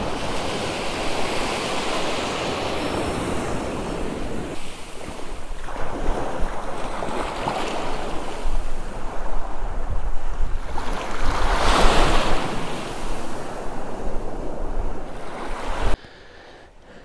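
Waves washing in and breaking, with wind buffeting the microphone. The noise swells and ebbs, surges loudest about two thirds of the way in, and cuts off abruptly near the end.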